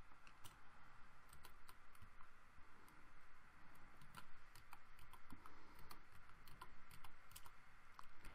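Typing on a computer keyboard: quiet, irregular keystroke clicks.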